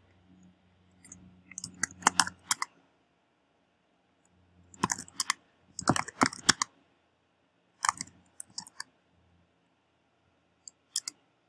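Typing on a computer keyboard: short bursts of key clicks separated by pauses.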